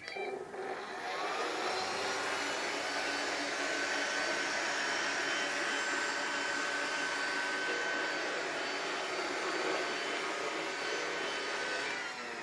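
Philips robot vacuum cleaner running: its motor starts up abruptly and builds within about a second to a steady whir with a high whine.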